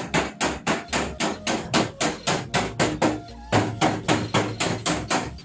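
Rapid hammer blows on a car's sheet-metal roof pillar, about five a second and each ringing briefly, with a short break about three and a half seconds in: panel beating to straighten a roof crushed in a rollover.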